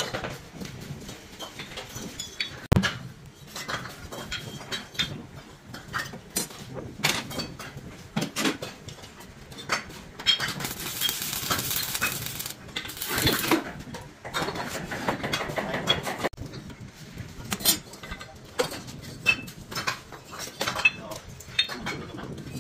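Irregular metallic clinks and knocks as metal tools and parts are handled during work on a staircase. About halfway through, a hissing noise lasts around three seconds.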